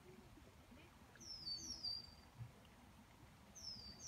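A small bird calling faintly, twice: each call is a pair of high, thin whistles that slide down and then level off, the first about a second in, the second near the end.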